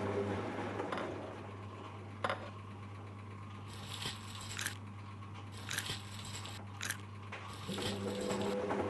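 Sound effects of a man eating: a single click, then a run of short crunching and scraping strokes about a second apart, over a steady low hum.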